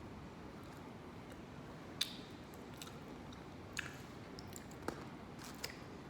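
Person chewing food quietly, with a few short sharp mouth clicks and smacks about two, four, five and five and a half seconds in.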